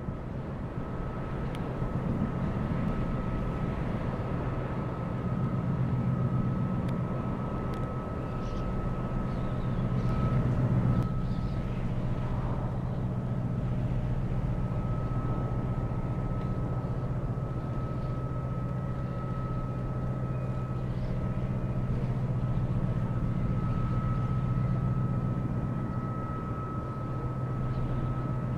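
A small cargo ship's engine droning steadily as it passes, with a thin steady whine above the low rumble.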